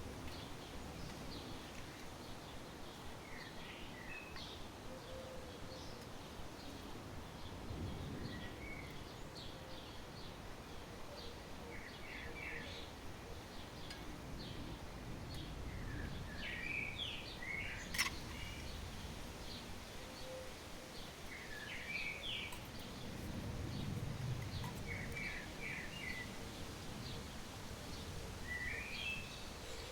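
Small birds chirping, short high notes and quick rising runs repeated all through, over a low outdoor rumble, with one sharp click about two-thirds of the way in.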